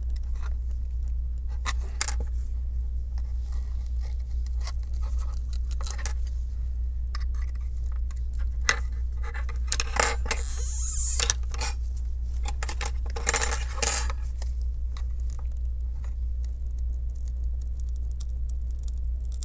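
Steel tweezers and a pry tool clicking and scraping against an iPhone 7's metal frame and battery as the battery is levered loose from its stuck adhesive, over a steady low hum. Two longer scraping rasps come about halfway through, among scattered small clicks.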